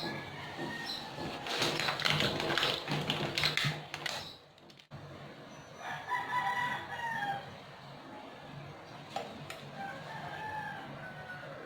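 A rooster crowing in the background, two drawn-out crows in the second half. A louder noisy stretch comes in the first few seconds.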